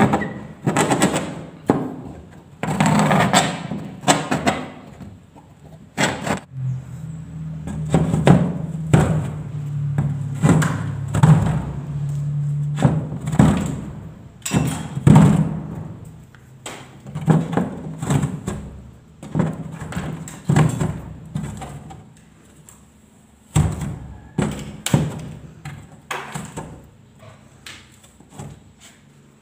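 Irregular knocks, taps and thuds with scraping between them: a circle is scored into a ceiling board with a hand-turned scribing tool, then knocked through and broken out. A low hum lies under the middle part.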